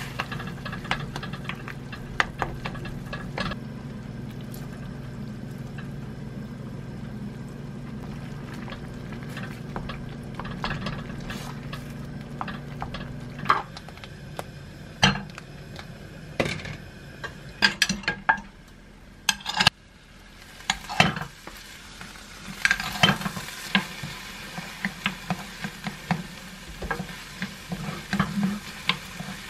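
A wooden spoon stirs and scrapes in an earthenware pot over a steady low hum, with scattered clicks. About halfway in the hum stops; there are sharp knocks as rice goes into a frying pan, then the rice sizzles as it is stir-fried with the wooden spoon, with many clicks and scrapes against the pan.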